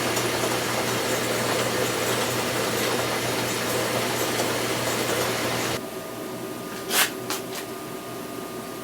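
A motor-driven machine running steadily while drilling a 5/16-inch hole in a steel part, a hum with a hiss over it that cuts off about six seconds in. A sharp click follows about a second later, with a fainter one just after.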